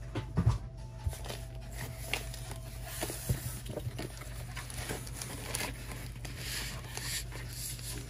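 Cardboard box being opened by hand: tape and packing tearing, with rustling and crinkling that builds in the second half, and scattered sharp clicks and knocks of things being handled.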